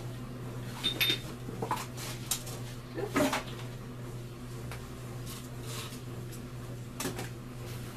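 Scattered knocks, clinks and rustles of boxed candle products being handled and set down during unpacking, over a steady low hum.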